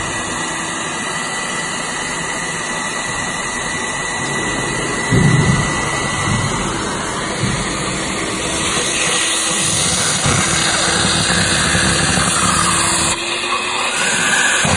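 Suction aspirator of a semi-automatic fish gutting machine running with a steady rushing hiss, drawing the guts out of mackerel. The hiss grows louder and harsher for several seconds past the middle, with a brief low thump a little before that.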